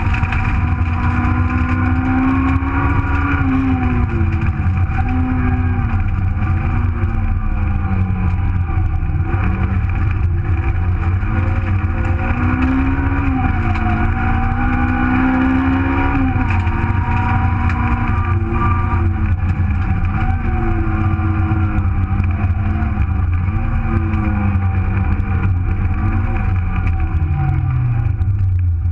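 Super1000 Nissan Micra rally car's 1.4-litre engine heard from inside the cabin at full stage pace. The engine pitch rises and falls every second or two as it revs through the gears and lifts for corners, over a steady low rumble. Near the end it drops sharply in pitch, then climbs again.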